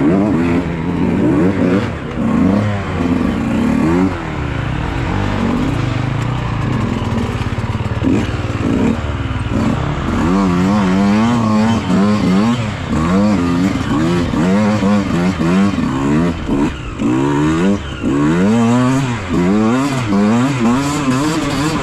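Beta 125 two-stroke enduro motorcycle engine being ridden hard, revving up and down again and again, its pitch rising and falling with each twist of the throttle and gear change.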